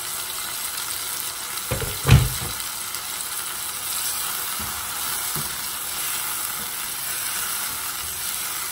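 Chicken pieces frying in oil with turmeric and chilli in a pot, a steady sizzle, with a splash of water just added to keep the spices from burning. A silicone spatula stirs them; a sharp double knock about two seconds in and a few softer taps later.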